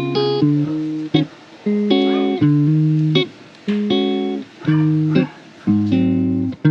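Background music: plucked guitar chords in short, evenly spaced phrases.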